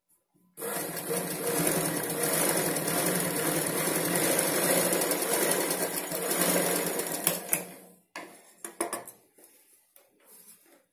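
Domestic straight-stitch sewing machine running steadily as it stitches a seam in cotton blouse fabric, stopping about seven and a half seconds in with a few sharp clicks. Then scattered soft clicks and cloth rustling as the fabric is pulled out from under the presser foot.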